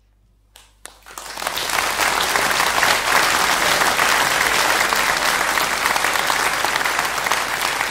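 Audience applause: a couple of single claps, then the whole audience clapping, swelling within about a second to a steady, loud ovation.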